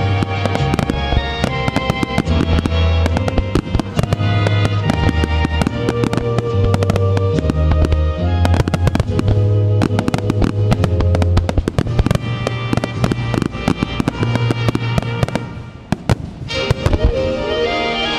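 Fireworks bursting and crackling over the show's music, which has a steady bass line. Sharp bangs come throughout. About sixteen seconds in, the music dips and a new piece begins amid more bursts.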